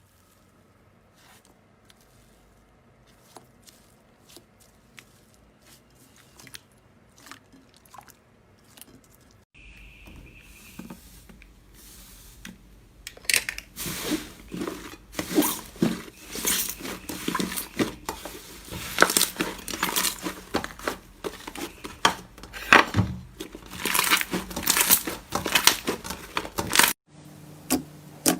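Slime being squeezed, stretched and poked by hand: dense sticky crackles, clicks and squishes. Faint at first, then much louder from about halfway through.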